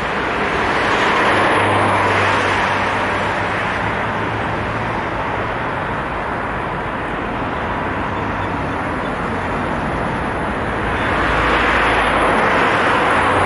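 Road traffic on a multi-lane city road: cars passing close by with tyre and engine noise. It swells as vehicles go past about a second or two in and again near the end.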